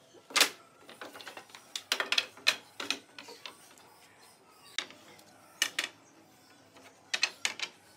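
Wooden slats knocking and clattering as they are set down one after another across the wooden rails of a workbench's lower shelf, in irregular clusters of sharp knocks.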